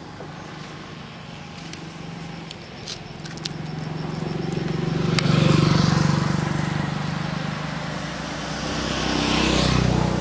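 A motor vehicle's engine running with a steady low hum, growing louder twice as it comes close, about halfway through and again near the end.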